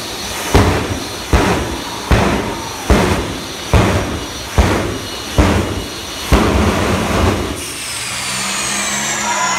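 Jet engine on a monster-truck fire engine firing its afterburner in eight sharp bursts about every 0.8 s. Near the end the bursts stop and the turbine's whine falls in pitch as it winds down.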